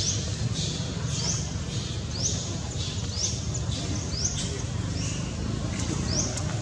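A short, high-pitched, rising chirping call from an animal, repeated about once a second over a steady low background hum.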